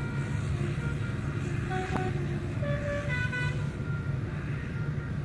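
Tour bus 'telolet' musical horn playing a short tune of changing notes, with a few notes a little under two seconds in and a clearer run about three seconds in, over the steady low rumble of a bus engine running. A sharp click comes about two seconds in.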